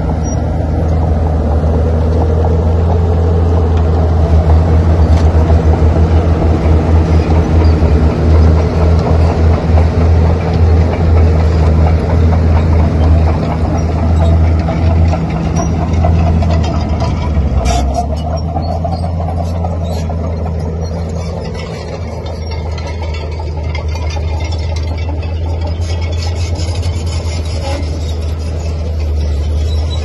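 Komatsu D41P bulldozer's diesel engine running under load as it pushes, loud and throbbing through roughly the first half, then easing off a little past halfway and running steadier.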